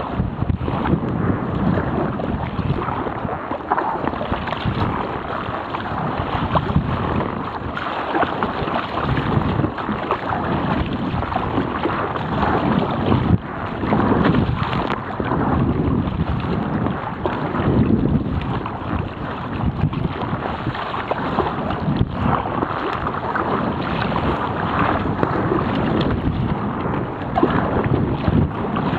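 Gale-force wind buffeting the microphone in gusts, over the rush and splash of rough sea water around a sea kayak.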